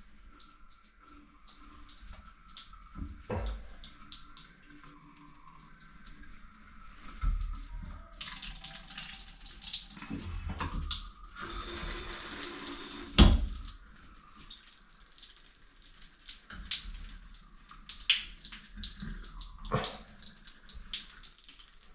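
Water splashing and dripping from a leaking shower head, heaviest in the middle, with scattered small clicks and one sharp knock a little past halfway.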